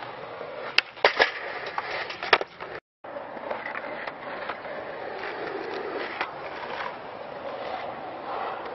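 Skateboard on asphalt: several sharp, loud board clacks and impacts in the first two and a half seconds. The sound then cuts out briefly just under three seconds in, and after that comes steady rolling noise with a few lighter clacks.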